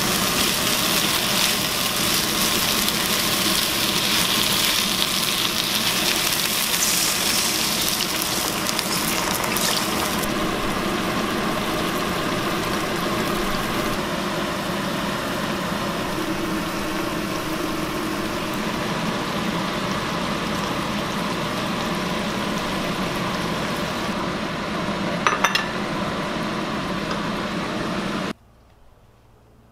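Catfish and eggplant sizzling in a nonstick wok while a silicone spatula stirs them. The sizzle is sharpest for the first several seconds, then settles into a lower bubbling simmer once liquid is in the pan. A brief clatter comes near the end, and then the sound cuts off abruptly.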